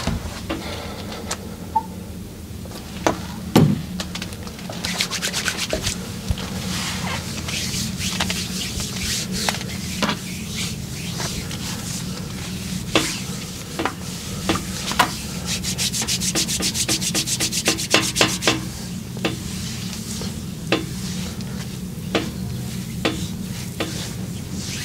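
Hands rubbing and tapping on skin during a massage, with scattered sharp slaps and a fast run of rhythmic taps about two-thirds of the way through. A steady low hum runs underneath.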